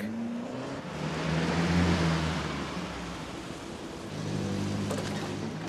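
A van driving past on a street: engine hum with road noise swelling to a peak about two seconds in and fading, then the engine sound rising again about four seconds in.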